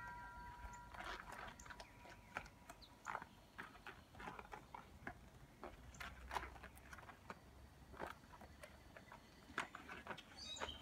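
Faint handling sounds of rubber-gloved hands unwinding artificial sinew from a wet, dye-soaked rayon sarong: scattered irregular small clicks, ticks and rustles.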